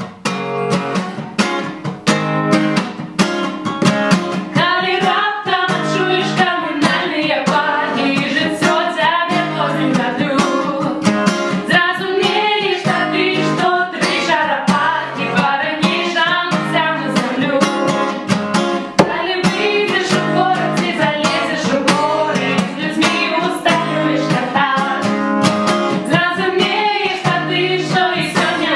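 Acoustic guitar strummed in a steady rhythm, with a woman singing a folk-pop melody over it from about four seconds in.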